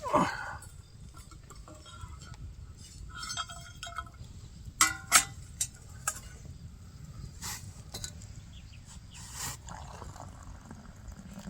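A few light, sharp clinks spread over several seconds, like camp cups or dishes knocked together. A loud, short cry that falls steeply in pitch opens the stretch and is its loudest sound.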